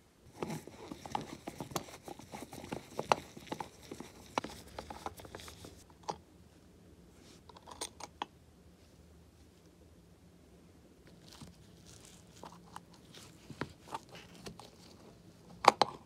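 Hand-work noise on the rusty metal lid of an antique Peugeot coffee grinder: small pliers scraping and clicking on the metal. There is a dense run of scratchy crackling for the first six seconds, then sparse clicks. A sharp double crackle near the end comes as a wad of old paper is tugged out of the lid seam.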